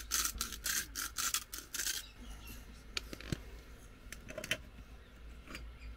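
Seasoning grinder being twisted: a quick run of gritty grinding strokes, about five a second, that stops about two seconds in. A few light clicks of handling follow.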